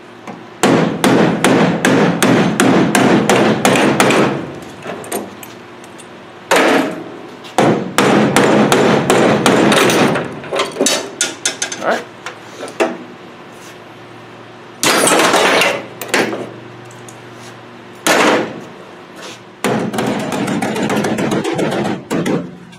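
Hammer striking sheet steel on a 1968 Camaro body, knocking a panel edge down against the adjoining panel so the two can be welded. The blows come in several fast runs with short pauses between.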